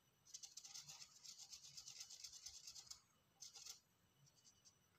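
Faint scratchy rubbing of a felt-tip marker's broad tip stroked across a cold porcelain leaf in quick fine strokes: one run of about three seconds, then a brief second stroke.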